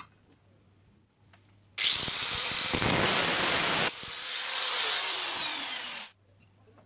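Electric angle grinder switched on and winding up with a rising whine, its disc grinding the end of a galvanized steel hollow section for about two seconds. It then comes off the metal and runs quieter, its whine falling in pitch, until the sound cuts off suddenly.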